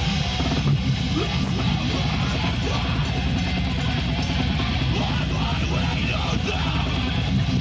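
Live rock band playing a song at full volume, with electric guitar prominent over a dense, steady low end.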